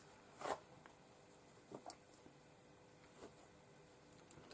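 Near silence: quiet room tone with a few faint, brief soft taps.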